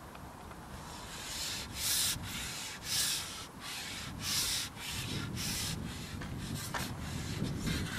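A carbon match-fishing pole being shipped back hand over hand: four scraping, rubbing strokes about a second apart as the sections slide back, then fainter scrapes and a couple of light ticks near the end.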